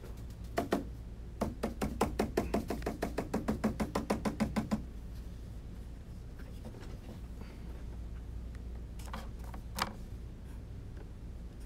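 A run of light, rapid knocks, about six a second for roughly three seconds, then two sharper clicks near the end: a watercolour brush being knocked against a hard surface while it is worked and loaded with paint.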